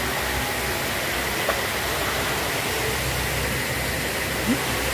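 Steady rush of churning, foaming river water at a weir, an even unbroken hiss.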